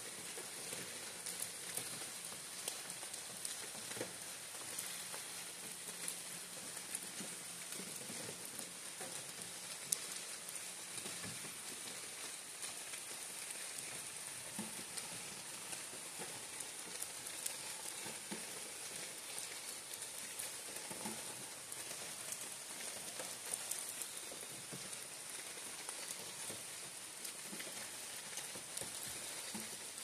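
Steady rain falling on the leaves of a broadleaf forest canopy: an even hiss full of scattered drips and patters, with one sharper drop about ten seconds in.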